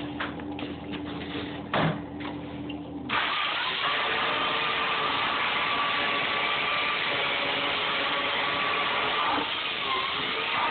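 Electric chainsaw starting abruptly about three seconds in and running loud and steady, its pitch dipping briefly twice near the end as it takes load cutting foam. Before it, a few knocks over a low hum.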